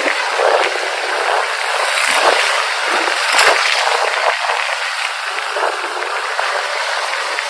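Steady, loud rush of wind and road noise on the microphone of a camera riding along on a motorcycle, with no clear engine note.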